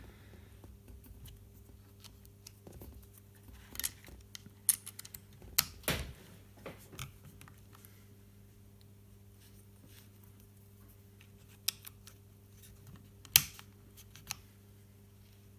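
Small tools and plastic drone parts being handled on a workbench: scattered clicks and light knocks, the loudest around six seconds in and again near thirteen seconds, over a faint steady hum.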